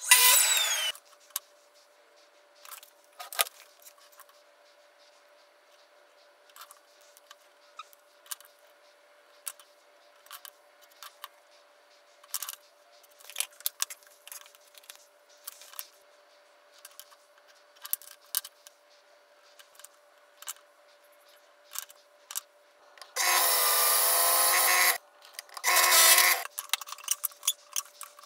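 Workshop handling sounds: a short loud burst at the very start, then scattered knocks and clicks of wood and tools being set down over a faint steady hum. Near the end a power drill runs steadily for about two seconds, then again briefly a moment later.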